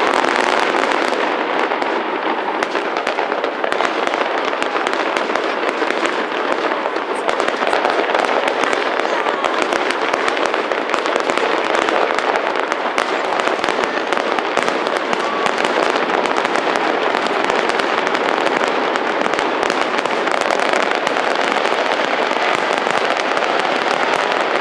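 Fireworks display: a dense, continuous crackling and popping of many shells going off at once, holding a steady loudness with no single boom standing out.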